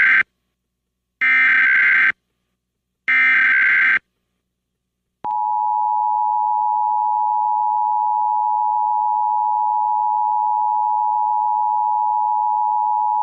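Emergency Alert System tones. First come the end of one SAME header data burst and two more harsh digital bursts of about a second each, a second apart. Then, about five seconds in, the steady two-tone EAS attention signal starts and holds.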